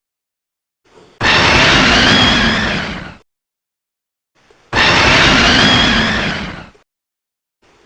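Greaman kaiju roar sound effect, played twice: two separate roars about two seconds each, with a wavering pitch, each fading out at the end, with a gap of about a second and a half between them. The roar is reused from the monster Telesdon.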